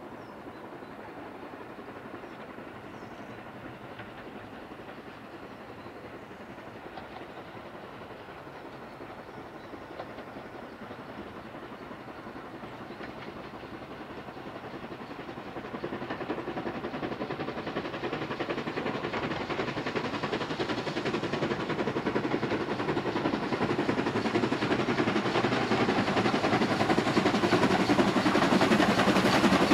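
GWR 5600 class 0-6-2 tank locomotive No. 5643 hauling a train of coaches under steam toward the listener. The sound of the engine and train is faint at first, then grows steadily louder through the second half as it comes closer.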